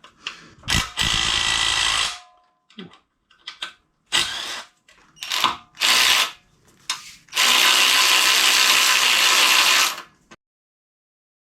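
Handheld power tool running in several short bursts and one longer run near the end, spinning out the motor-mount bolts on an ATC200X engine.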